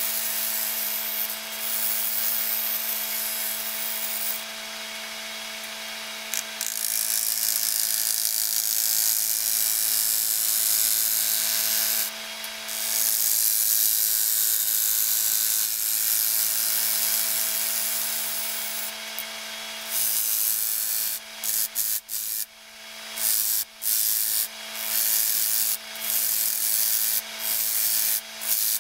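Wood lathe running with a steady motor hum while a gouge cuts into the face of a spinning elm disc. The cut is a continuous hissing shear of shavings with a few brief breaks. About 20 seconds in, it turns into a series of short cuts, the tool going on and off about once a second.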